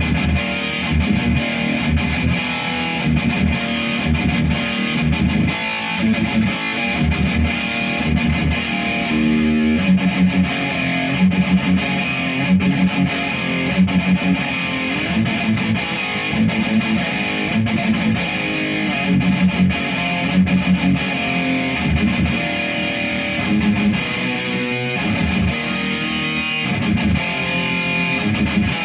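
Electric guitar played through a Futile Art FX Chainsaw EQ pedal, an HM2-style EQ, into a Marshall amplifier: distorted riffs and chords.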